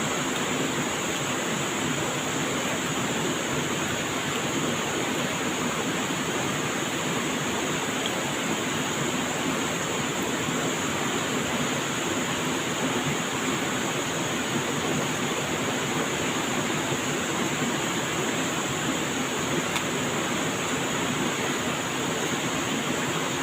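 Steady rushing of flowing water, like a stream or small waterfall, with a steady high hiss above it.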